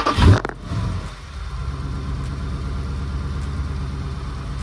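Dodge Charger Scat Pack's 392 (6.4-litre) HEMI V8, fitted with an open cone air filter, flaring loudly just after firing up, then settling into a steady idle.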